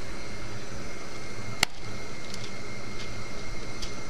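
A metal can turned upside down on a parchment-lined baking tray to release a loaf of canned dog food, giving one sharp click and a few faint taps, over a steady background hum.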